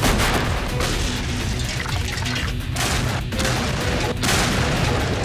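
Explosion blasts: a sudden loud detonation at the start, with another surge of blast noise about four seconds in, over background music.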